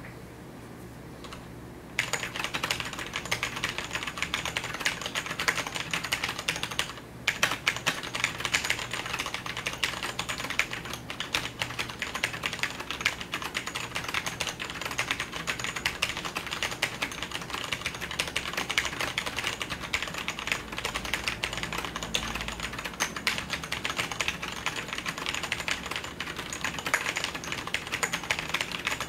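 Rapid, continuous typing on a Cherry G80-3000 mechanical keyboard with Cherry MX Brown switches. It starts about two seconds in and breaks off briefly once a few seconds later.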